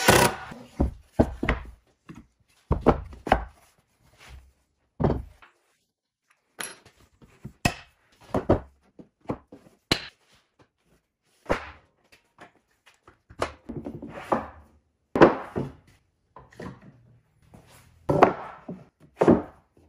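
An irregular series of wooden knocks and clunks: boards and bar clamps being set down and handled on a wooden workbench.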